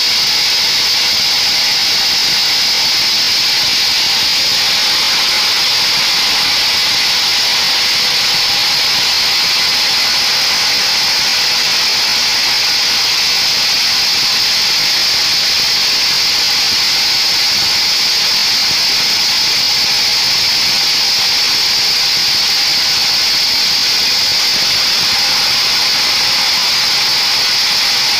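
Band sawmill running, its blade sawing lengthwise through a mahogany beam: a steady, high-pitched hiss and whine.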